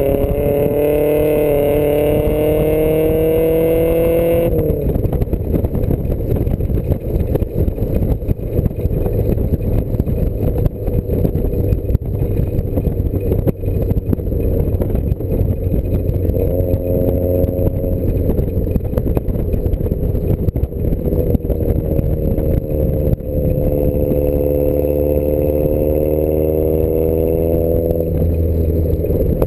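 Small sports car's engine driven hard, heard from inside the cabin: it revs up, rising in pitch, breaks off about four seconds in, and then pulls up again several times over a steady rumble, easing off near the end.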